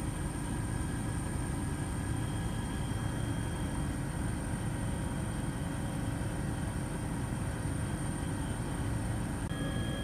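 Steady aircraft cabin noise: a constant low engine rumble with faint high whines, heard from inside the aircraft.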